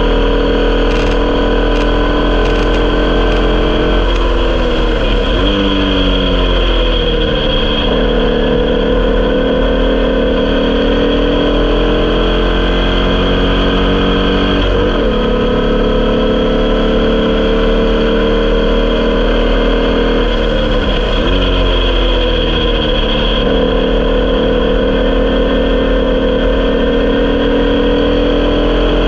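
Air-cooled 1200cc Volkswagen flat-four of a Formula Vee racing car running hard at racing speed, heard onboard with wind rush. The engine note drops and climbs again three times, at gear changes.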